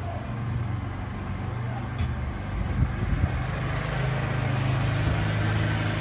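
A motor vehicle's engine running close by: a steady low hum that grows louder over the second half.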